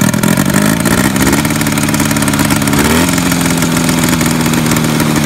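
A 1974 Polaris Electra snowmobile's 340 cc air-cooled two-cylinder two-stroke engine running loud. Its pitch climbs sharply about three seconds in as it revs up, then holds steady at the faster speed.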